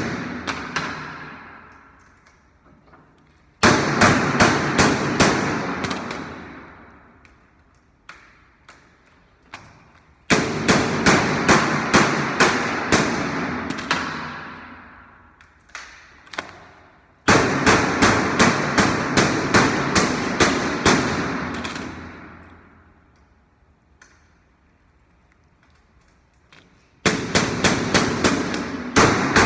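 Washing machine running in bursts: each starts with a fast run of knocks that then fade away over a few seconds. The bursts repeat every several seconds with quiet spells between.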